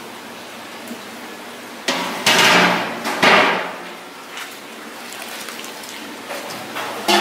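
Stainless steel pots and a mesh strainer clanking together: two loud metallic knocks with ringing about two and three seconds in, and a shorter knock near the end, over a steady low background hiss.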